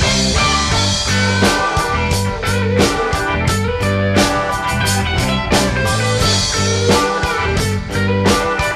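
Rock band playing an instrumental passage: electric guitar, bass and a drum kit keeping a steady beat, with no vocals.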